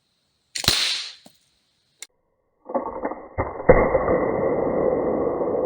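A homemade exploding crossbow warhead being test-fired: a short hissing whoosh, a click, then two sharp cracks about three and a half seconds in that open into a long, loud rumbling ring that slowly fades.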